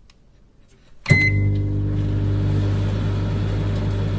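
Microwave oven started: a click and a short beep about a second in, then a steady low hum as the oven runs.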